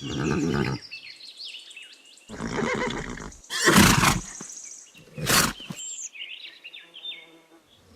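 Horse neighing: four loud calls in the first six seconds, with birds chirping faintly between them.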